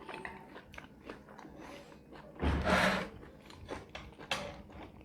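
Eating sounds at a table: small clicks and taps of utensils and chewing, with a short breathy sound about two and a half seconds in.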